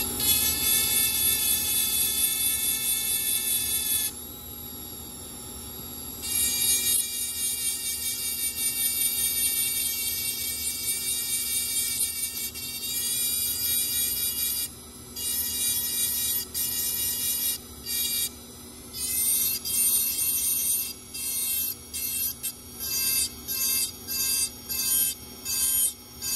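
Dental lab micromotor handpiece with a diamond bur grinding a milled crown: a high-pitched whine over a faint steady motor hum. It runs steadily at first, then in the second half breaks into short strokes about half a second to a second long.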